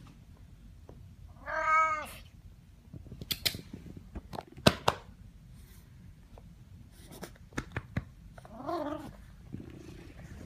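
Siamese cat meowing loudly: one long, arching meow about two seconds in and a softer, shorter one near the end. A few sharp clicks and knocks fall between the two calls.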